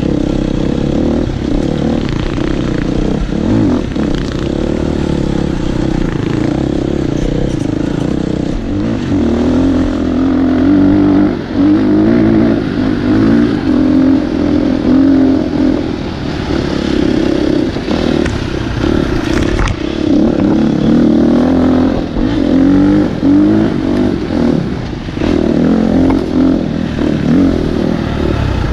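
Dirt bike engine heard up close from the rider's own bike, its revs rising and falling again and again as the throttle is worked along a narrow rocky trail, with scattered knocks and rattles from the bike.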